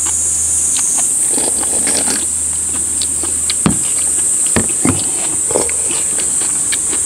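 A steady high-pitched drone of summer insects, with close eating sounds over it: a sip of soup, chewing, and short clicks of chopsticks and spoons against metal bowls, the sharpest a little past three and a half seconds in.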